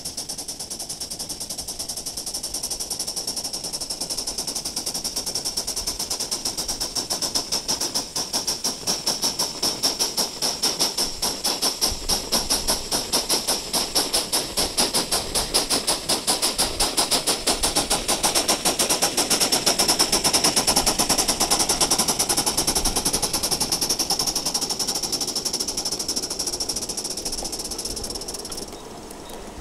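Aster gauge 1 live-steam model of a class 52 steam locomotive running, its exhaust beating in rapid, even chuffs over a steady hiss of steam. The chuffing grows louder as the engine comes close and drops off near the end as the coaches follow it past.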